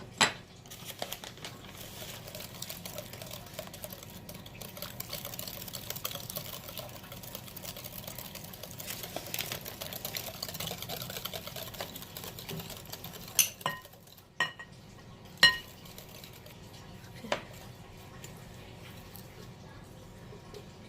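Batter being stirred by hand in a bowl, a steady scratchy swishing for about twelve seconds, then five sharp ringing clinks of the utensil knocking against the bowl.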